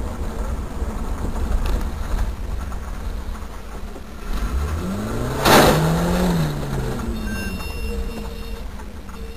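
Road vehicle noise: a steady low rumble, with a loud rush a little past halfway as an engine note rises and then falls.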